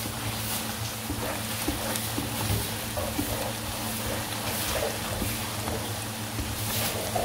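Chopped onions sizzling and crackling in hot oil in a kadhai as they are stirred, over a steady low hum.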